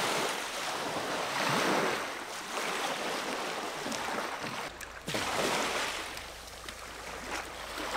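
Sea waves washing in at the water's edge, a rushing noise that swells and falls every second or two.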